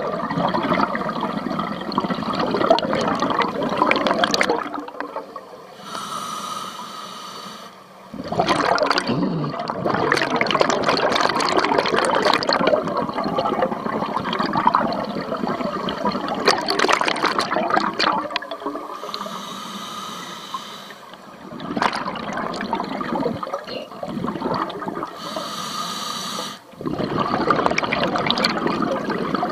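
A scuba diver breathing through a regulator, heard underwater: long rushes of exhaled bubbles alternate with quieter hissing inhalations, three breaths in all.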